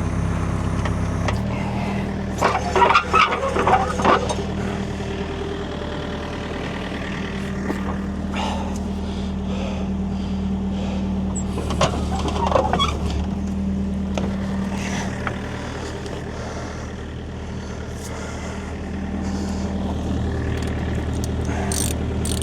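Kobelco excavator's diesel engine running, its note shifting under load as the hydraulics lift the machine and let the track settle onto the rollers. A few metal clanks and knocks are heard.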